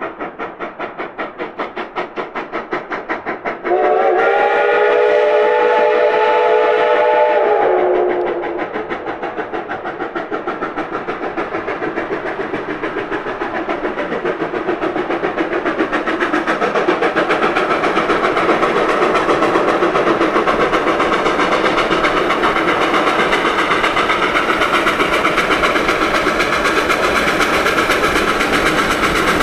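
Narrow-gauge steam locomotive approaching with a fast, steady chuff of exhaust that grows louder as it comes closer. About four seconds in, its steam whistle sounds one long chord-toned blast lasting about four seconds.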